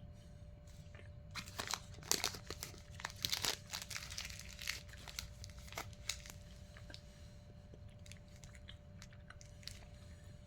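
A person chewing a bite of a chewy pecan, caramel and nougat candy bar, with a run of sticky, crackly mouth clicks in the first half that thin out later.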